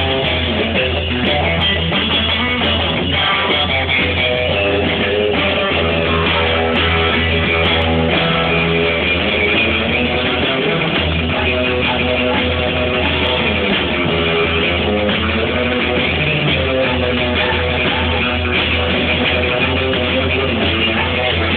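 Rock'n'roll band playing live: electric guitar with a steady bass line underneath.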